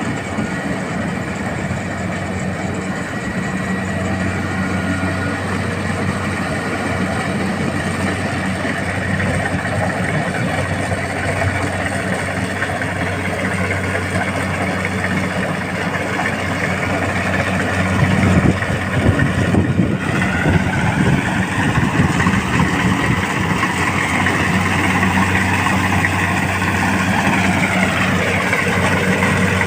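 Rice combine harvester running steadily with a continuous engine hum. About two-thirds through, a higher whine comes in, and it falls away near the end.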